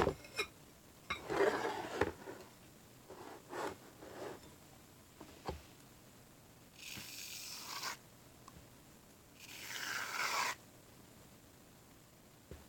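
Aerosol can of shave cream hissing out foam in two spurts of about a second each, about seven and about nine and a half seconds in. Before them, light scraping and small knocks.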